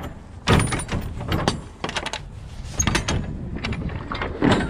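A series of sharp knocks and clunks from the rear swing doors of a semi-trailer as their lock-rod handle and doors are worked open.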